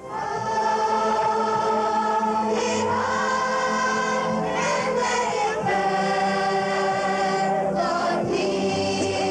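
A large choir of children and adults singing a slow song in long held notes, the chord shifting every few seconds.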